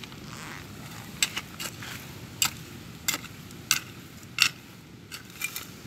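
Hand digging in stony soil: about ten sharp, short scrapes and clicks at uneven intervals as the soil is dug and stirred, over a low steady background noise.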